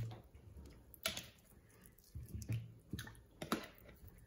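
Peeled yam slices dropped by hand one at a time into a pot of hot water: a handful of soft plops and small splashes, with light knocks of the slices against the pot and bowl.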